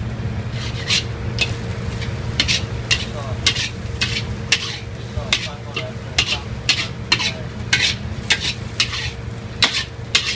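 Metal wok spatula scraping and tossing sliced beef and scallions in a hot carbon-steel wok, about two strokes a second, over steady sizzling and a low rumble. The stir-fry is at its final stage, with the soy-based sauce being tossed through the meat.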